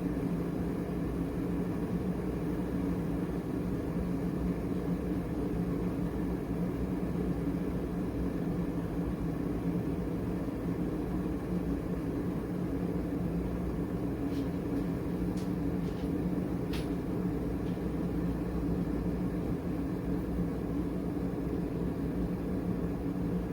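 Mecity HB-K002C glass electric kettle heating water: a steady noise with a low hum, and a few faint ticks about two-thirds of the way through.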